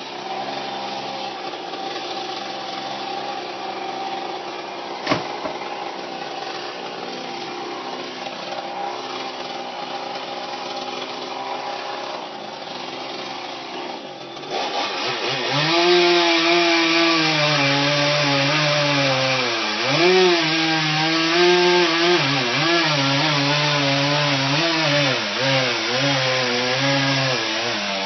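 Two-stroke chainsaw running steadily at lower speed, then about halfway through revving up louder and cutting wood, its pitch dipping and recovering again and again as the chain bites into the cut.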